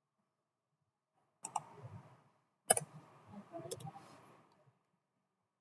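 A few sharp computer mouse clicks: a pair about a second and a half in, a louder single click a second later and two more near the four-second mark. Faint low room noise lies between the clicks.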